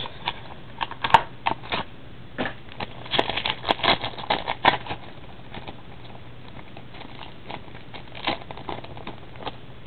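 Foil trading-card pack crinkling and crackling as hands tear it open and handle the wrapper. A dense run of crackles in the first half thins to a few scattered ones.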